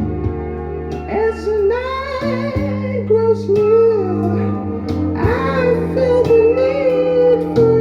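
Music: a song with a wavering, sung melody over guitar and sustained bass notes.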